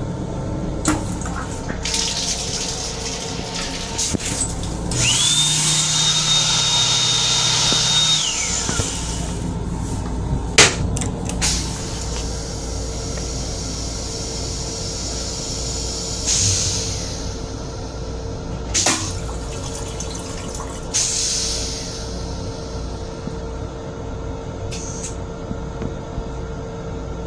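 Hand dryer in an M7 railcar restroom running for about three seconds with a steady high whine. Then the stainless steel toilet flushes: sharp clicks and bursts of rinse water swirling in the bowl and draining away. A steady hum of the railcar runs underneath.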